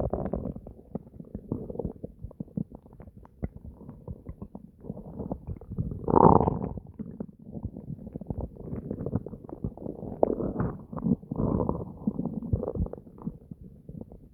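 Human stomach gurgling and rumbling: a constant, irregular string of small crackling pops and gurgles, with a louder gurgle about six seconds in and another run of swells a few seconds before the end.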